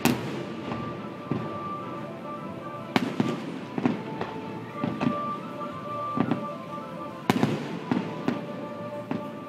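Aerial fireworks shells bursting: sharp loud reports right at the start, about three seconds in and just past seven seconds, with smaller pops and crackles between. Music plays steadily underneath.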